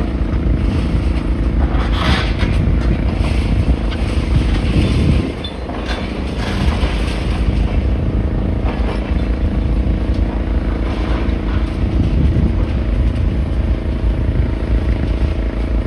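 Wind buffeting the microphone in a loud, uneven low rumble, over the steady hum of a running engine.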